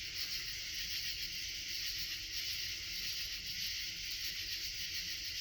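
Steady chorus of night insects, an even high-pitched hiss with no breaks.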